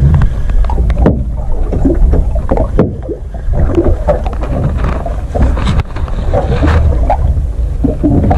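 Wind buffeting the microphone and sea water slapping the boat's hull: a heavy, steady low rumble with scattered short knocks.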